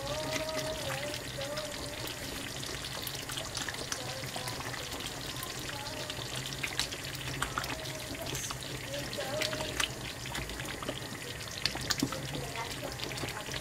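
Thick fumbwa stew bubbling and spitting in an open pan, with a steady crackle of small pops and a wooden spoon stirring through the sauce.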